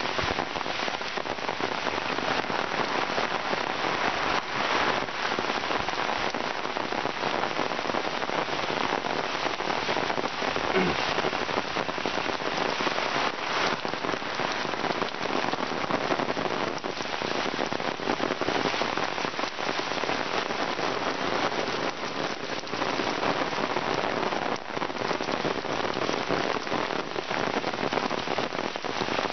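Heavy rain falling on wet paved paths and foliage: a steady hiss with many individual drop impacts.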